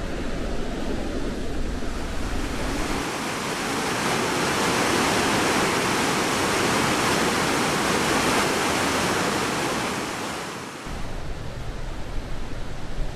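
Steady roar of Victoria Falls, water plunging into the gorge, heard as a dense rushing hiss that swells in after a couple of seconds and cuts off sharply near the end. Before and after it, wind rumbles on the microphone.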